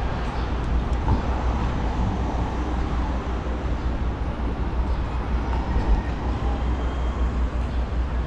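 Steady city street noise: a low traffic rumble with no single event standing out.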